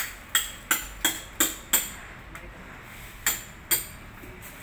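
A stiff broom sweeping a hard surface in quick, scratchy strokes, about three a second. The strokes come in two runs, with a pause of about a second between them.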